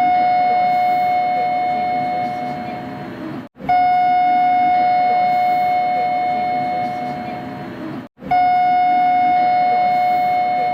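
Kita-Osaka Kyuko 9000 series train door chime, a three-note electronic chime that rings out and fades over about three seconds, repeated: one ring is fading at the start, and new ones begin about three and a half and eight seconds in.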